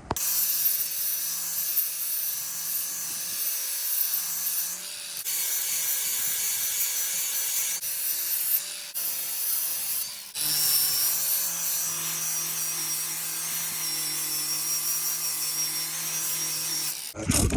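Electric sander running on the epoxy-coated wood, a steady motor hum under a scratchy hiss, sanding off resin drip marks. It briefly drops away twice, about 5 and 10 seconds in.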